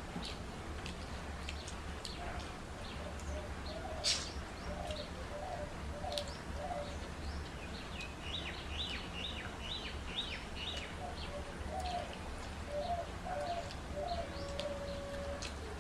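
Birds calling in the background: short repeated notes in little runs, with a quicker burst of higher chirps midway and a held note near the end. Over them come soft clicks and smacks of eating rice by hand from steel plates, the sharpest about four seconds in.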